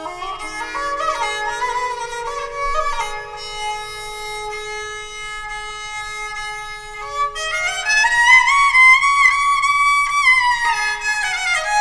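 Instrumental music led by a bowed string instrument playing a sliding melody. About seven seconds in, the melody climbs higher and gets louder.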